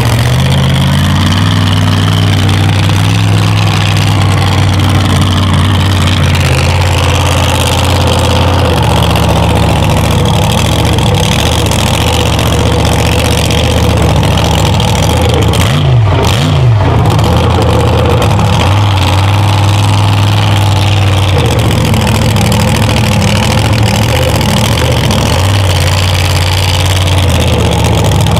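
A 1520-horsepower mega truck engine running loudly at idle, heard from inside the cab, its pitch and level shifting a little now and then, with a brief dip and rise about two-thirds of the way through.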